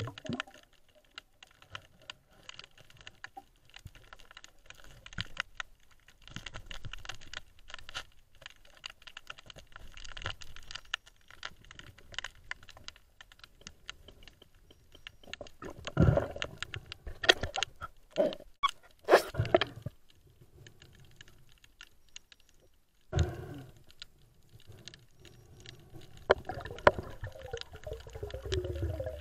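Underwater ambience picked up by a diving camera: irregular crackling and clicking, with a burst of louder knocks and scrapes a little past halfway and one more sharp knock a few seconds later.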